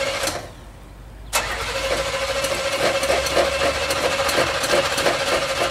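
Starter motor cranking the derby car's Buick 307 V8 with a steady whine, without the engine firing. It lets off just under half a second in and cranks again about a second later.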